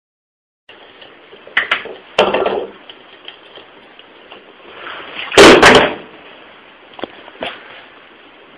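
A handful of sharp knocks and thuds over a faint hiss. The loudest are a group of three close strokes about five and a half seconds in, with smaller knocks before and after.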